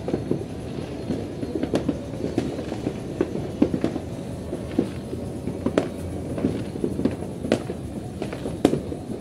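Fireworks and firecrackers going off: a dense, continuous crackling with sharper bangs standing out about once a second.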